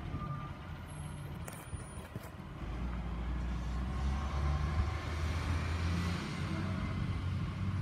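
Garbage truck engine running with a steady low drone, getting louder about two and a half seconds in as the truck comes up the street.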